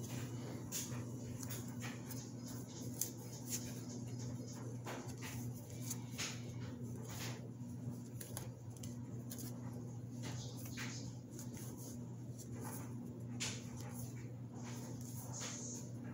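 Magic: The Gathering cards being handled and sorted: scattered short clicks and slides of card against card, over a steady low hum.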